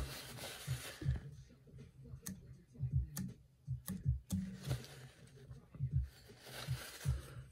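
Quiet, scattered light clicks and soft taps of hands working a glued foam popper head on a hook held in a fly-tying vise.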